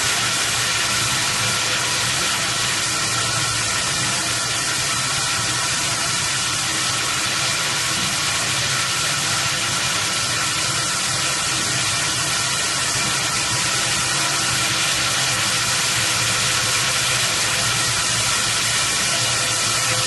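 Polypropylene baler-twine extrusion line running: a steady, even hiss with a hum of several steady tones from its motors and rollers underneath.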